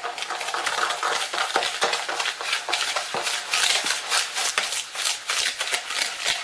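Wire whisk beating egg yolks and sugar by hand in a plastic bowl: a steady run of rapid scraping, clicking strokes.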